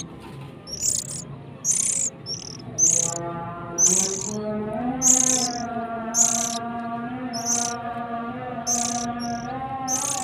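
Young oriental magpie-robins giving short, high, rasping calls about once a second.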